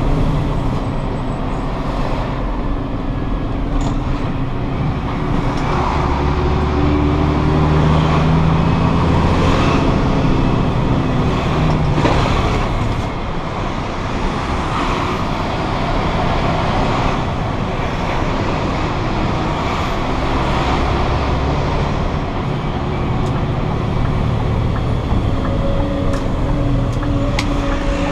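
A 32-ton grab lorry's diesel engine running under way, heard from inside the cab with road noise, its engine note rising and falling as it accelerates and changes gear.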